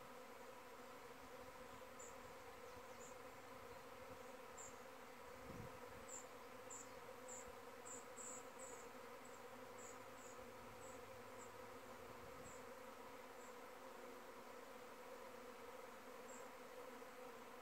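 A large cloud of honey bees flying around their hive, heard as a faint, steady buzzing hum; the beekeeper takes it for a virgin queen's mating flight. A run of short high chirps sounds through the middle.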